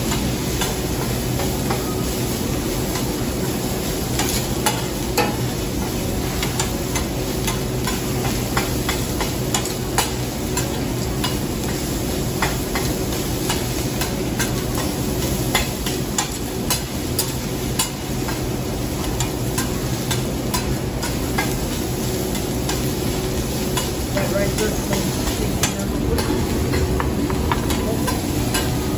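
Metal spatula clacking and scraping on a steel teppanyaki griddle as fried rice is chopped and stirred, many sharp irregular clicks over a steady sizzle.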